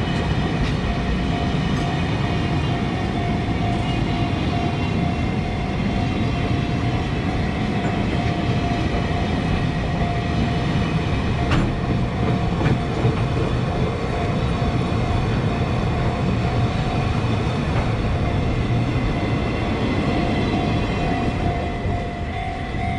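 Long freight train of loaded flatcars rolling past, a steady rumble of steel wheels on the rails with a couple of sharp clanks about halfway through. The sound falls away near the end as the last car goes by.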